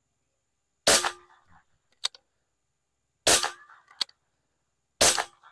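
Rossi R8 air rifle firing lead round-nose pellets: three sharp shots, a little over two seconds apart and then under two, each followed about a second later by a short faint tick.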